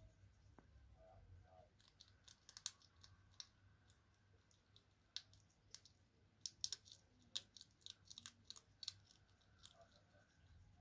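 Hedgehog crunching dry cat kibble: faint, irregular sharp crunches and clicks of chewing, coming thickest through the middle of the stretch.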